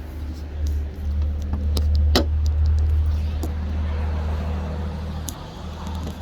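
2014 Chevrolet Cruze engine idling with the hood open, a steady low hum with irregular sharp ticks and knocks, the loudest about two seconds in. The owner takes the ticking for a ruined engine that needs replacing.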